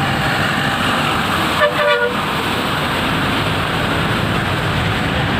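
Steady road traffic noise, with one short vehicle horn blast about a second and a half in.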